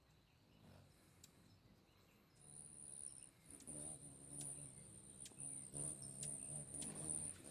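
A cricket chirping in a steady high trill from about two seconds in. Under it, a faint low voice talks in the second half, with a few light ticks.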